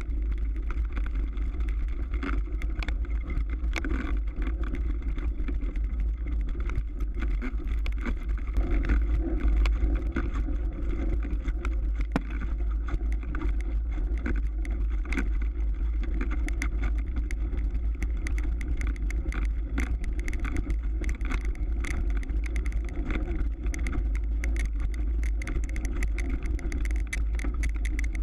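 Mountain bike riding over ice and hard-packed snow, heard as a steady low rumble of wind and ride vibration on the camera's microphone, with a constant scatter of small clicks and crunches from the tires and bike that grows busier in the second half.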